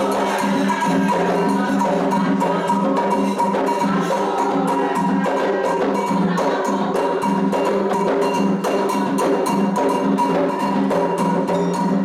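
Candomblé toque for Logun Edé: atabaque hand drums with a ringing struck metal bell, playing a steady rhythm of close, even strokes.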